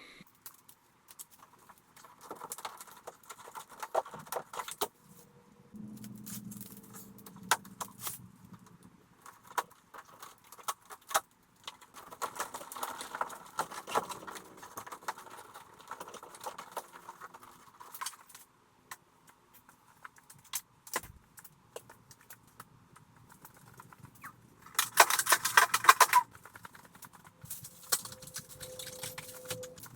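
Handling noises: scattered light clinks, rattles and rustling of things being moved about, with a louder harsh burst of noise lasting about a second a few seconds before the end.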